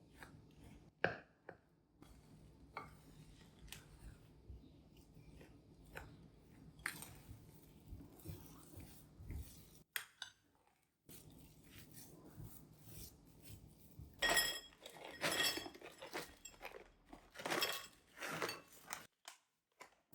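Kitchenware handled: scattered small taps and clicks, then a few seconds of clattering and clinking near the end, with short metallic or glassy rings.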